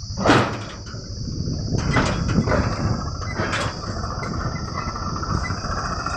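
Heavy diesel machinery running with a low rumble, with sharp metal clanks and knocks: one loud knock a moment in, then a few more around two and three and a half seconds in.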